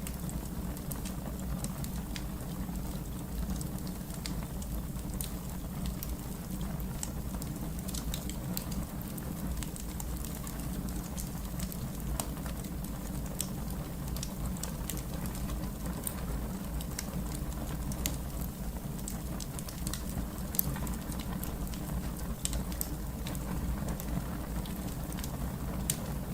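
Wood fire crackling: irregular sharp snaps and pops over a steady low rumble of the burning.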